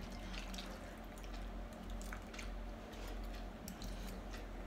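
Quiet chewing and slurping of instant noodles, with scattered faint small clicks.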